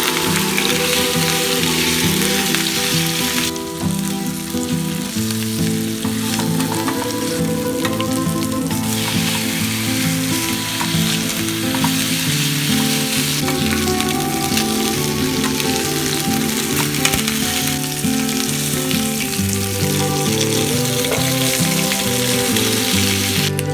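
Beer-marinated pork neck steak frying in a hot pan with a steady loud sizzle that eases briefly twice, over background music.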